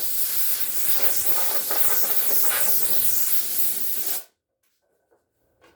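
Router running in a router table with the bit cutting into a wooden workpiece during a shaping pass: a loud, dense hissing noise that cuts off suddenly about four seconds in.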